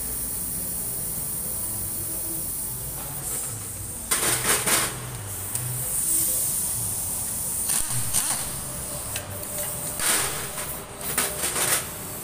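Metal engine parts and hand tools clinking and knocking in three short bouts as the fuel rail with its injectors is worked loose from the top of a Toyota 1NZ-FE engine, over a steady background hum and hiss.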